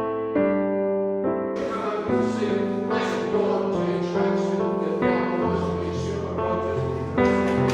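Background music: piano chords, joined about one and a half seconds in by a fuller arrangement with cymbals and drums.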